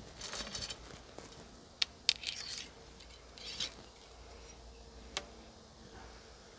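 Recurve bow and arrows being handled: a few short scraping rasps and several sharp clicks, the last click about five seconds in.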